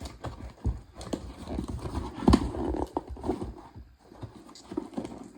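A cardboard box being cut and pried open by hand: irregular scraping and rustling with scattered knocks, the loudest about two seconds in.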